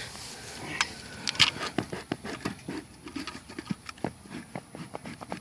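Dry brush and twigs crunching and snapping in a quick, irregular run of short crackles, a few sharp loud snaps about a second in.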